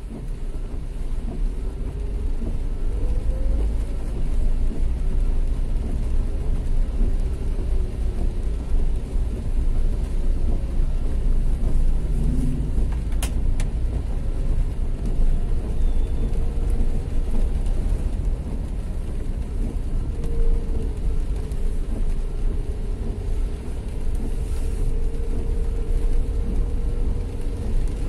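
Road traffic: vehicle engines running over a steady low rumble, their pitch rising and falling, with one short click about halfway through.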